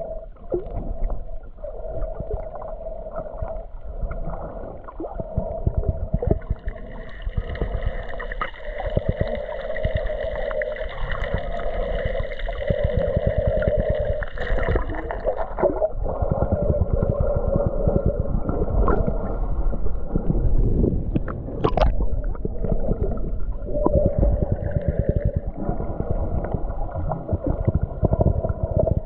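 Underwater sound picked up by a submerged camera: muffled water noise with constant crackling, under steady hums that shift in pitch about six and sixteen seconds in.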